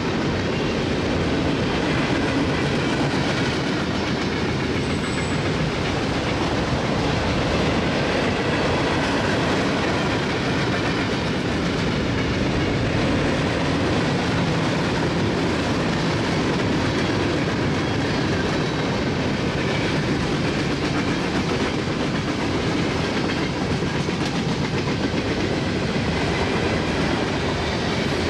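Freight cars of a BNSF train (boxcars, covered hoppers, tank cars) rolling past at track speed: the steady rumble and rattle of steel wheels on rail and the cars' running gear, at an even level throughout.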